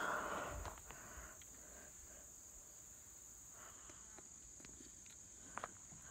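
Steady high-pitched chirring of insects, with a brief rustle at the start and a few faint light clicks, two of them close together near the end.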